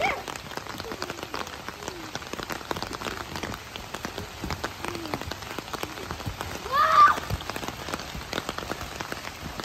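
Steady rain falling, an even patter of many small drop ticks, with a brief shout about seven seconds in.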